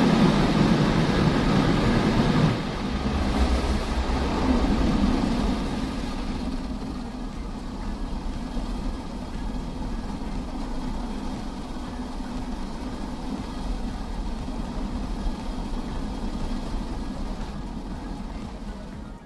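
Car engine idling, heard from inside the cabin. A louder rush of noise over the first few seconds cuts down sharply, then the low, steady engine hum carries on.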